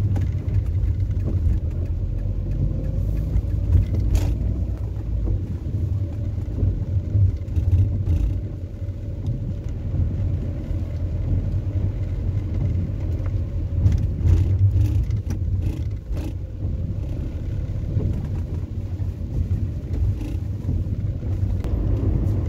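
Steady low rumble of a car's engine and tyres heard inside the cabin while driving on a wet road, with a few scattered faint clicks.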